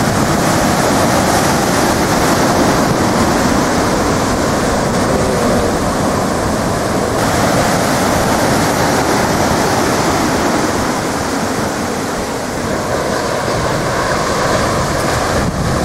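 Heavy surf from a big ocean swell: large waves breaking and churning in a steady rushing noise that swells and eases only slightly.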